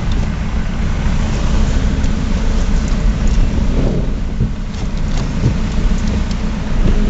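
Ford Mondeo TDDI diesel engine running through a straight-through exhaust with no silencers, giving a steady, loud low rumble.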